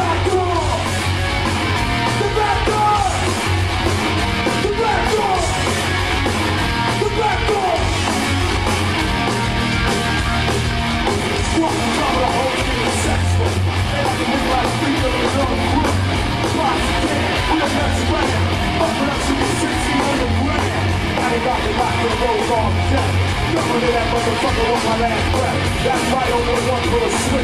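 A heavy metal band playing live: distorted electric guitars over bass and drums, with yelled vocals.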